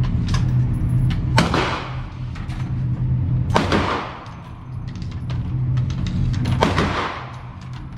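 Ruger AR-556 MPR rifle firing three single shots a few seconds apart, each ringing out with a long echo in the indoor range. Fainter sharp cracks fall in between, over a steady low hum.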